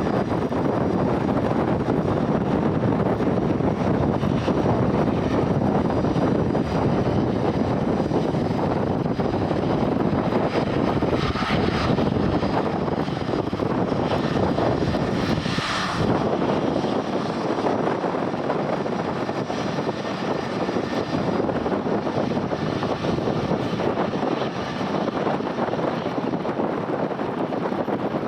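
Airliner engines running as a plane passes the airfield: a steady, loud rushing with a brief sharper hiss about 16 seconds in, easing slightly afterwards.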